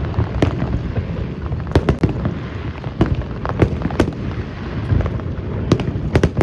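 Fireworks display: a rapid, irregular string of sharp bangs and booms, several a second, over a continuous low rumble.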